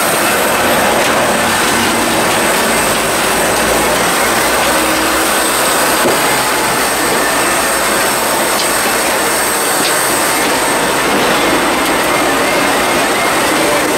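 Steady, loud jet turbine noise on an airport apron: an even rushing roar with a thin high whistle over it.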